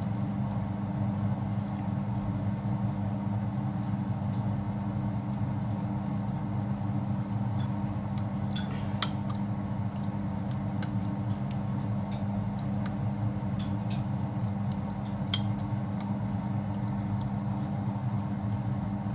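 A spoon clinking and scraping against a dish while mince is spread into a layer, with small scattered clicks. Under it a steady low hum.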